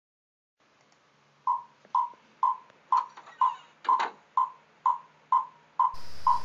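Chinese wooden fish (muyu) struck with a stick in a steady beat, about two knocks a second, each with a short ringing tone, starting about a second and a half in.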